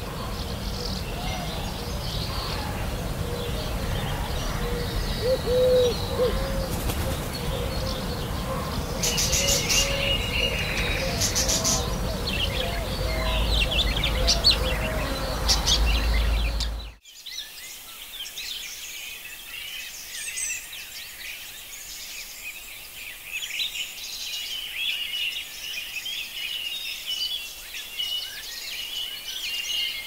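Outdoor birdsong ambience: several birds chirping and calling over a low, steady rumble that grows louder. About 17 seconds in, the sound cuts abruptly to quieter, continuous bird chirping without the rumble.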